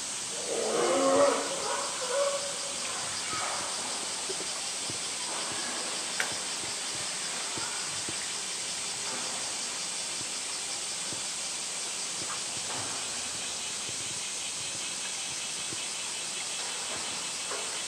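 Steady hiss of outdoor background noise, with a short burst of indistinct voices about a second in and a single sharp click about six seconds in.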